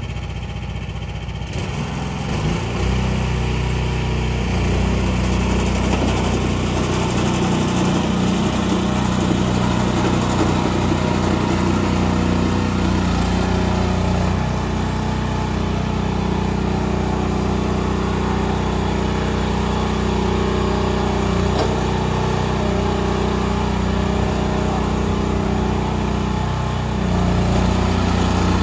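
Small engine of a mini tracked skid steer loader running steadily. It speeds up and gets louder about two seconds in, changes speed slightly midway, and gets a little louder again near the end.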